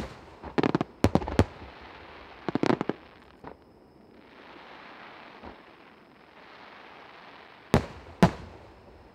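Fireworks shells bursting: a run of sharp bangs in the first three seconds, several in quick clusters, then a lull with a faint hiss, and two more loud bangs near the end.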